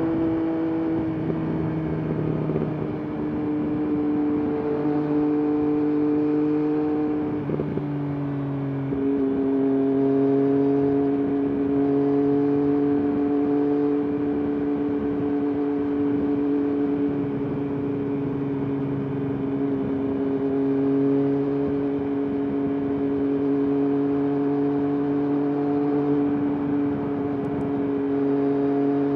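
Triumph Daytona 765 three-cylinder engine and exhaust holding a steady note while riding, its pitch dropping and settling lower about seven seconds in. Wind buffets the microphone underneath.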